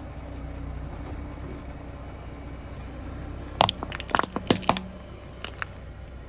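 A car tyre rolling onto plastic toothpaste tubes and crushing them: a quick run of sharp cracks and crunches about three and a half seconds in, as the hard flip-top caps and tubes give way, and two more cracks a second later. A low, steady engine idle runs under it.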